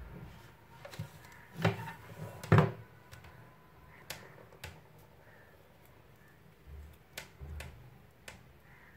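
Scattered sharp clicks and taps from drawing tools being handled on a desk. The two loudest come close together about two seconds in, with fainter ticks later.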